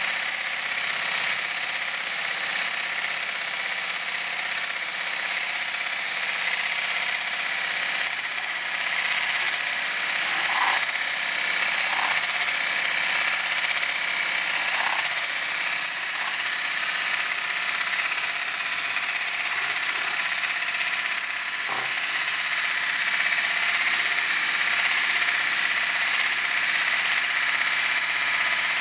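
Bosch ErgoMixx MSM66150 hand blender running with its whisk attachment in the plastic measuring beaker: a steady, high-pitched motor whine, with a few brief ticks in the middle.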